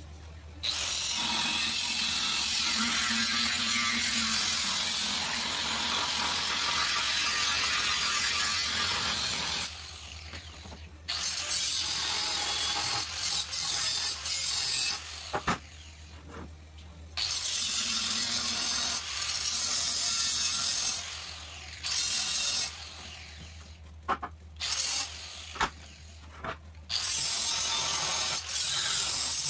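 Angle grinder cutting into steel frame rail in several passes: one long run of about nine seconds, then shorter runs of a few seconds each with brief pauses and a few clicks between.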